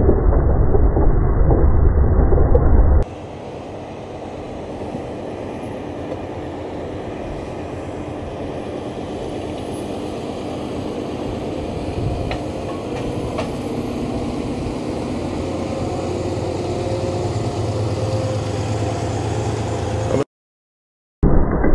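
Tractor engine running under load while ploughing, with a loud low rumble at first. About three seconds in the sound changes abruptly to a steadier engine note that grows slowly louder. It drops out completely for about a second near the end.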